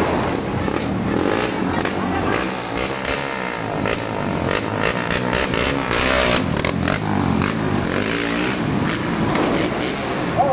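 Motorcycle engines running close by amid continuous street traffic noise, with an engine revving about six seconds in.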